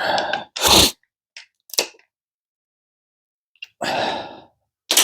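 Short, noisy bursts of hand-tool work on transmission bolts, five or six in all, the loudest just under a second in, with silence between them.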